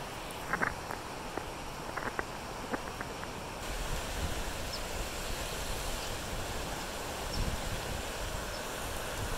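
Flood-swollen creek rushing over its banks after heavy rain: a steady wash of fast-flowing water that grows louder and brighter about three and a half seconds in. A few light clicks in the first few seconds.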